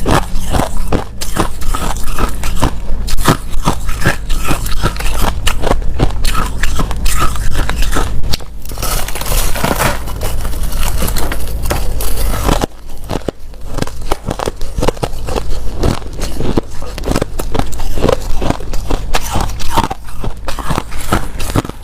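Clear crushed ice being bitten and chewed close to the microphone: a dense, continuous run of sharp cracks and crunches, with a grittier stretch of grinding about halfway through.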